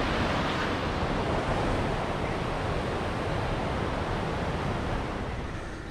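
Sea surf breaking on the shore mixed with wind buffeting the microphone: a steady rushing noise that eases near the end.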